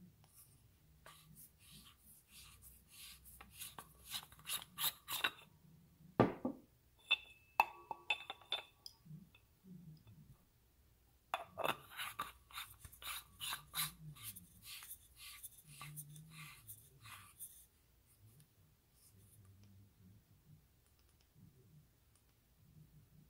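Thrunite TN42v2 flashlight's aluminium body being twisted apart and back together by hand: two spells of rapid clicking, rasping thread noise, with a knock and a few ringing metallic clinks between them.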